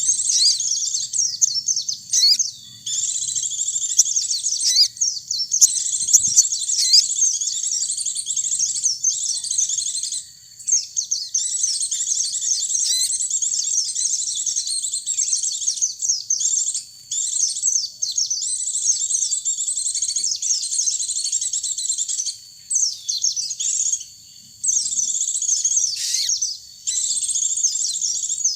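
Rapid, high-pitched twittering birdsong, with long chattering phrases broken by short pauses, typical of pleci (white-eye) song.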